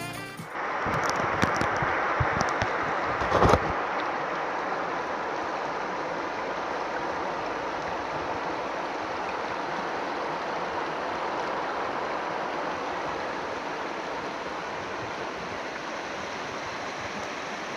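Shallow river water rushing steadily over stones and gravel bars. A few knocks come in the first few seconds, with the loudest thump about three and a half seconds in.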